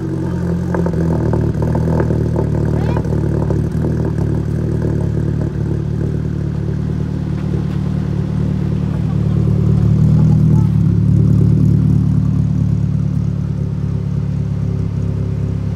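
Car engine idling steadily through its exhaust after a cold start, on a fresh remap. There are a few sharp crackles in the first seconds, and the sound swells slightly about ten seconds in.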